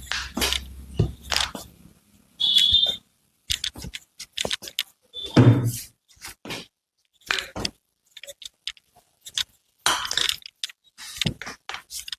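Handling noises during a chiropractic treatment: an irregular string of short knocks, scrapes and rustles, with a brief squeak about two and a half seconds in.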